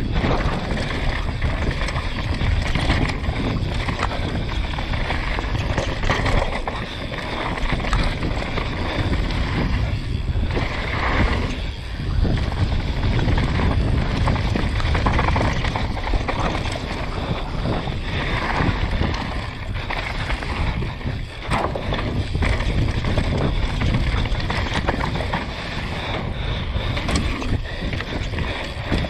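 Downhill mountain bike ridden fast down a dirt and gravel trail: the steady rumble of knobby tyres on the loose surface with frequent short rattles and knocks from the bike over bumps, under wind buffeting the microphone.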